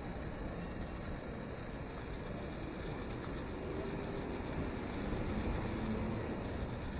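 Steady street noise heard from a moving bicycle: wind on the microphone and passing traffic, a little louder in the second half.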